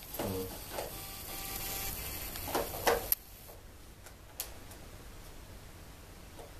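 A white plastic plug-in connector being pushed and worked onto a metal power bus track: scraping and handling noise, then two sharp clicks about three seconds and four and a half seconds in.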